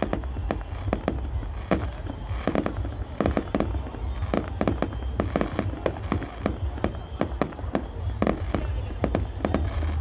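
Fireworks display going off: a rapid, irregular string of bangs and crackling pops, several a second, from aerial shells and fountains bursting.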